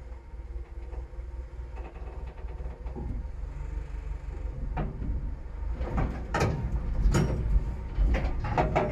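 A vehicle engine running steadily at low revs while metal clanks and knocks, the knocks starting about halfway through and coming thick and loud near the end.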